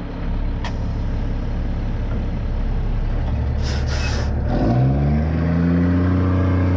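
GMC C8500 dump truck's diesel engine running, with two short hisses of air, typical of the air brakes, a little past the middle. Right after, the engine revs up and holds at the higher speed as the truck moves off.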